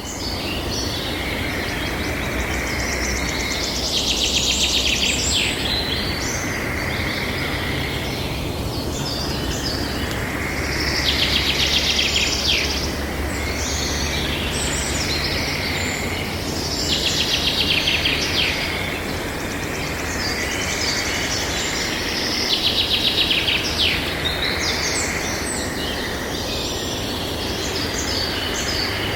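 Forest ambience: a songbird repeats a rapid trilling song phrase about every six seconds, with scattered other bird calls, over a steady background hiss and low rumble.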